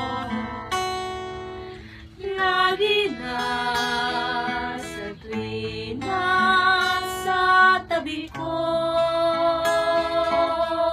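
Three women singing a slow song together, accompanied by a strummed acoustic guitar.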